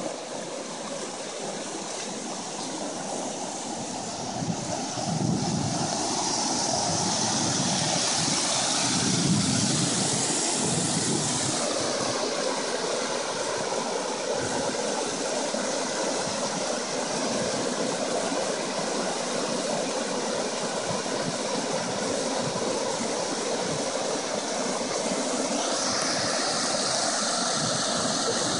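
Creek water rushing over rocks in shallow rapids and small cascades: a steady rush that grows louder about five seconds in.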